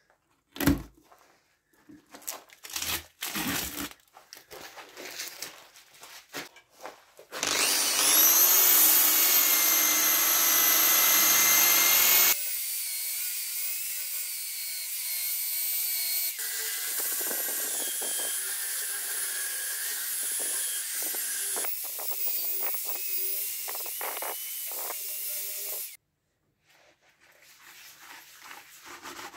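A few sharp snips and clicks of scissors cutting packing tape, then an electric drill with a sanding disc spins up with a rising whine about seven seconds in and runs steadily. A few seconds later it gets quieter and its pitch wavers as the disc sands the outside of the wooden form, until it cuts off suddenly near the end.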